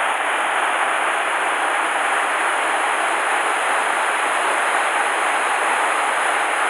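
Mountain stream water rushing steadily over rocks, an even hiss with no break.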